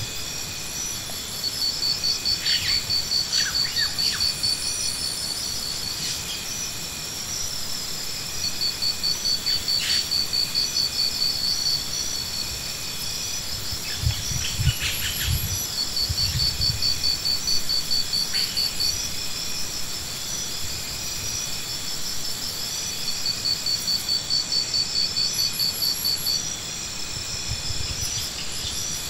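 Insects calling: high, rapidly pulsing trills in bouts of a few seconds, repeating over a steady high-pitched drone. There are a few low thumps around the middle.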